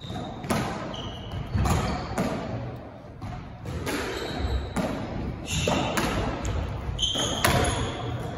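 A rally on a squash court: the ball cracks off rackets and walls every second or so, and rubber court shoes squeak briefly on the wooden floor between the shots.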